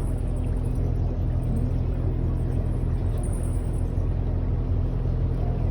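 Tour boat's engine running at a steady pace: an even low rumble with a constant hum.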